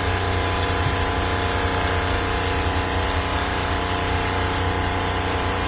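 Small electric water pump running steadily, a constant hum with several steady tones, pushing collected rainwater through the filters and UV sterilizer into the boat's water tank.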